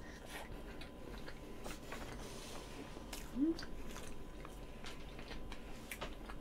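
Close-up chewing and small wet mouth clicks of someone eating soft cream-filled roll cake. About three and a half seconds in there is a short rising hum from the eater.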